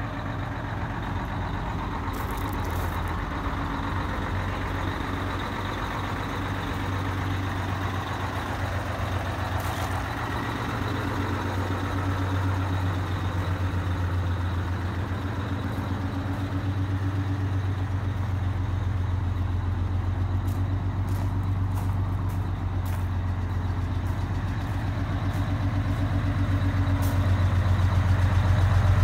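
Detroit Diesel 6V92TA two-stroke turbocharged V6 diesel engine of a 1985 Hahn fire engine idling steadily, getting louder near the end.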